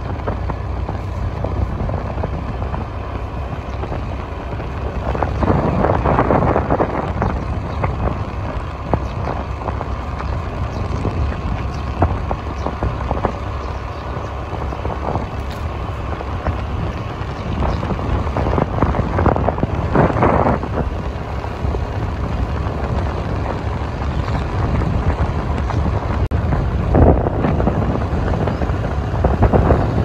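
Wind rushing over the microphone of a moving motorbike, with the ride's low road and engine rumble underneath. Several louder gusts swell up along the way.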